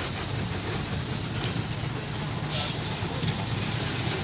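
Vehicle engine running steadily with road noise, heard from on board while driving.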